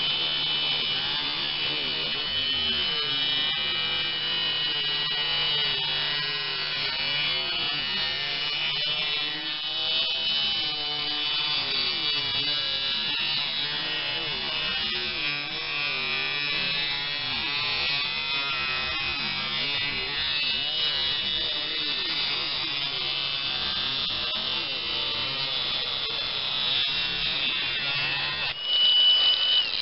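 Angle grinder running steadily with its disc grinding off the protruding end of an oil-impregnated bronze sleeve bushing pressed into a steel idler-pulley bracket. It stops shortly before the end.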